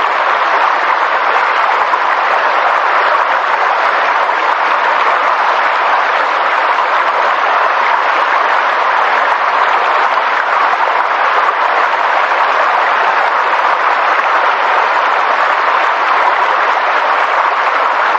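Steady, dense rushing of water, such as rain or a stream, with no breaks or changes.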